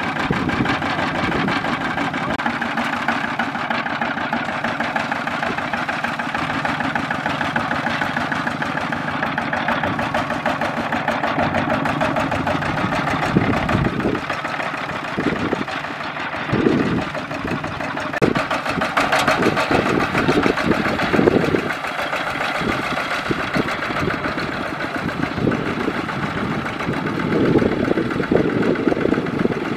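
Kubota ZT155 single-cylinder diesel engine of a two-wheel walking tractor running steadily under load while it hauls a trailer through deep mud. The engine note surges louder several times around the middle.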